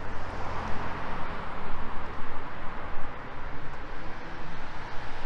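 Street traffic: cars driving past on the road, their tyre and engine noise swelling and fading.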